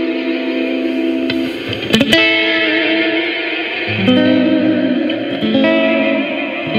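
Clean electric guitar chords played through an EarthQuaker Devices Astral Destiny octave reverb pedal in its Ascend mode, the chords ringing on with rising shimmering octave trails. A new chord is struck about two seconds in and another about four seconds in.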